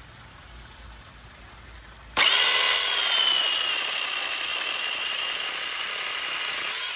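Peektook 6-inch cordless electric mini chainsaw starting with a sudden high whine about two seconds in, its pitch dipping slightly as it bites in. It runs for about five seconds cutting into a branch, then stops.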